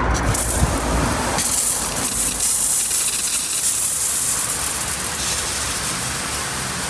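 Garden sprinkler heads spraying water in a steady, loud hiss, showing that the bed's irrigation is working.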